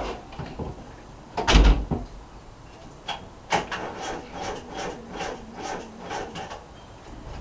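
A heavy thump about one and a half seconds in, then a steady run of short rasping or scraping strokes, about three a second.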